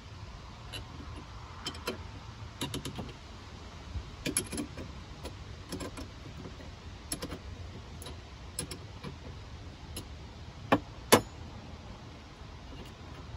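Small metal clinks and clicks of a wrench and cable ring terminals being handled while the leads are unbolted from a battery shunt, then two sharper knocks close together near the end as the wrench is laid down on the battery case.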